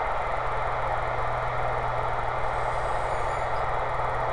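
Steady static hiss from a CB base-station radio's speaker with the channel open, with a low hum underneath.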